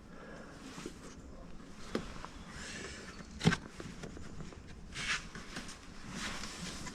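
Plastic interior trim panel being worked at with a pry tool: a few sharp clicks and knocks, the loudest about three and a half seconds in, with soft rustling and scraping between them. The panel is stuck tight.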